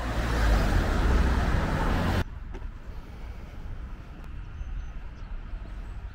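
Busy city street traffic, cars driving past with a low rumble, which cuts off abruptly about two seconds in to a much quieter, steady outdoor background.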